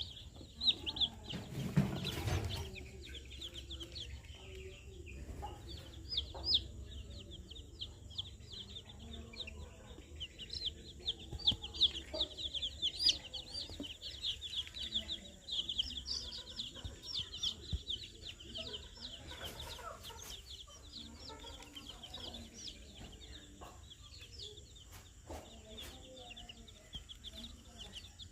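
A brood of Peruvidai native (naattu kozhi) chicks peeping constantly in a dense chorus of short high chirps, with some lower clucking mixed in. A brief rustling knock about two seconds in.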